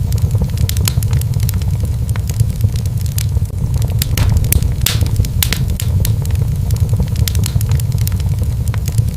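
Wood fire burning in a fireplace: a steady low rumble of flame with irregular sharp crackles and pops, several a second.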